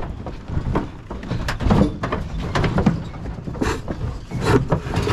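Cattle stepping and shifting inside a wooden livestock truck body, their hooves and bodies knocking and thumping against the plank floor, sides and gate in an irregular string of knocks.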